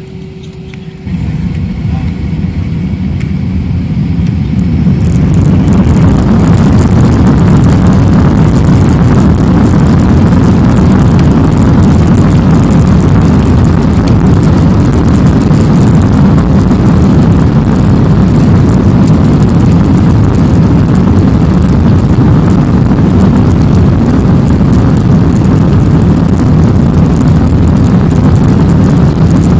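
Airliner's jet engines spooling up to takeoff power: the noise jumps about a second in and builds over the next few seconds to a loud, steady rush that holds through the takeoff roll.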